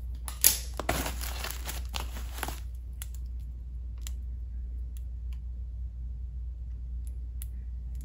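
Plastic packaging wrap crinkling and rustling as it is pulled off a crystal sphere by hand, with a sharp snap about half a second in. The rustling stops after about two and a half seconds, leaving only a few faint clicks.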